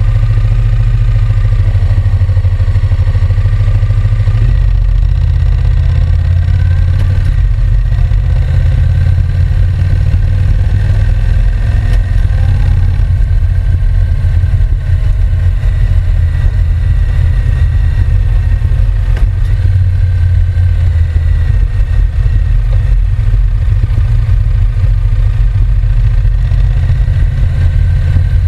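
Honda NC750X motorcycle's 745 cc parallel-twin engine running with a steady, deep, low-pitched exhaust note.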